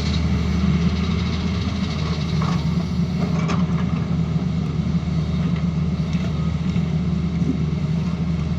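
Tata Hitachi Zaxis excavator's diesel engine running steadily, with a couple of light clicks near the middle.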